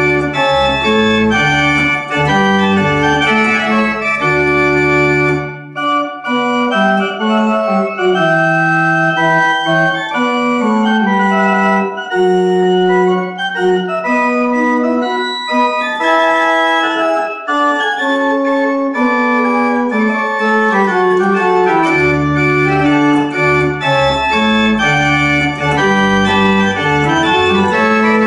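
Pipe organ played in held chords that change about once a second. Deep pedal bass notes sound under the chords at first, drop out for a long middle stretch on the manuals alone, and come back near the end.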